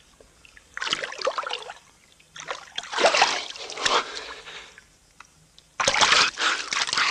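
Sea water splashing and sloshing in three loud bursts: about a second in, again from about two and a half to four seconds, and once more from about six seconds on.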